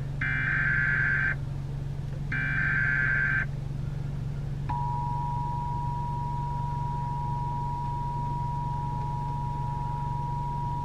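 Emergency Alert System SAME header: two roughly one-second bursts of buzzy digital data tones, the last two of the three header bursts. About a second after them, the steady two-tone EAS attention signal starts and holds, over a constant low hum, opening a new weather alert.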